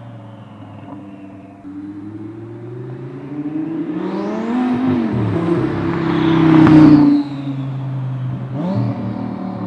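Twin-turbo V10 Audi R8 accelerating hard past, the engine note rising and growing louder to a peak about seven seconds in, then dropping off suddenly.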